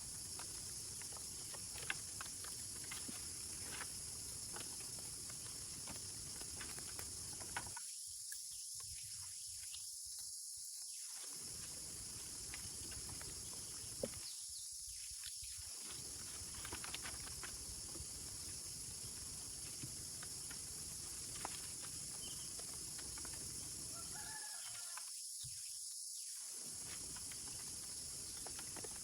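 Outdoor ambience: a steady high-pitched hiss with scattered faint clicks and ticks.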